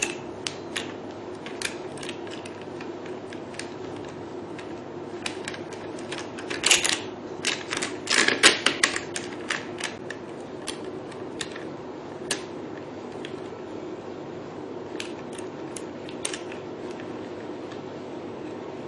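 Scattered clicks and short rattles of plastic parts being handled, as working handles are fitted and tightened into the holders of a hydrofacial beauty machine. The clicks bunch together about seven and eight to nine seconds in, over a steady low hum.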